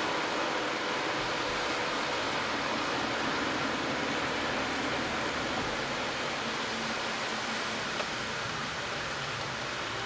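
A car driving on a wet road: steady tyre and road noise with the engine underneath.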